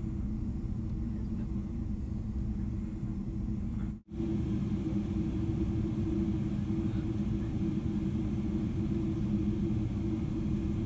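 Steady low rumble of a jet airliner's engines and airframe, heard inside the passenger cabin. It cuts out for an instant about four seconds in, then carries on slightly louder.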